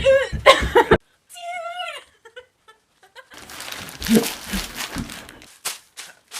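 A person's voice with laughter, broken by an abrupt cut to silence, then a stretch of noisy shuffling and a couple of sharp clicks near the end.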